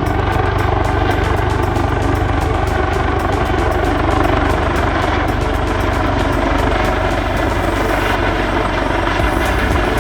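Aircraft engine running steadily and loudly, with a fast, even chopping beat over a deep drone.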